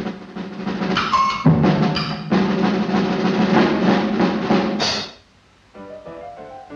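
Cartoon orchestral score with busy drums, including a drum roll and snare. It cuts off suddenly about five seconds in, and after a short pause softer, separate pitched notes begin.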